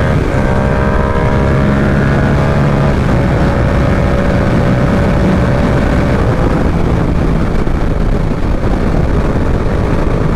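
Yamaha R7 parallel-twin engine running under way, heard through heavy wind noise on the helmet microphone. The engine note steps down about three seconds in and again around six seconds, then is mostly buried by the wind.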